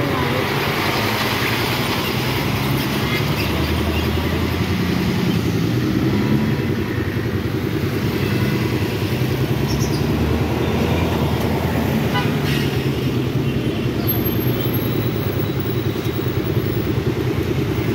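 A motorcycle engine idling close by with a steady rapid putter, while street traffic passes: motorbikes, vans and a jeepney going by.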